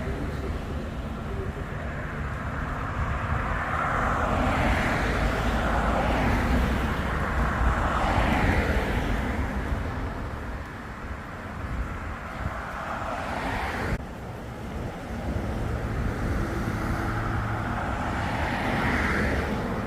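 Water taxi's engine droning steadily, with swells of rushing water and wind noise rising and falling over it.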